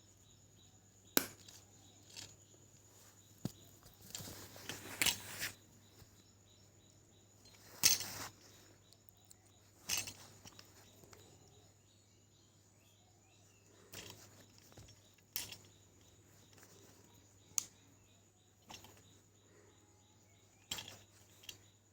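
Scattered light clicks and short rustles of hands working electrical wires into the terminals of a plastic socket board, over a faint steady hum.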